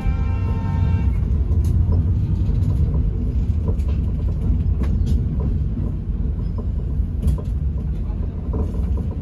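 Express train running: the steady low rumble of a moving passenger coach, with scattered sharp clacks and rattles.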